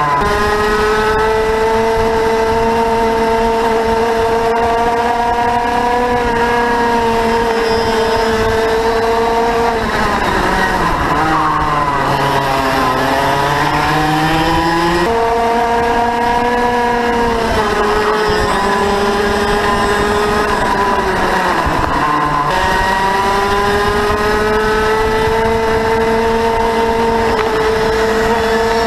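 Onboard sound of a two-stroke racing kart engine running hard, its pitch held high down the straights, falling as the kart slows for corners about ten seconds and again about eighteen seconds in, then climbing back as it accelerates out.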